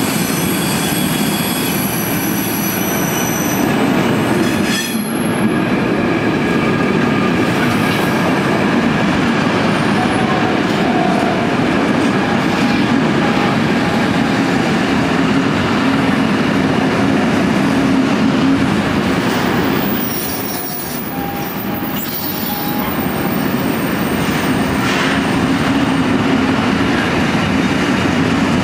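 Wagons of a long intermodal freight train rolling past close by on a curve: a steady heavy rumble of wheels on rail, with thin high-pitched wheel squeals in the first few seconds and again around twenty seconds in.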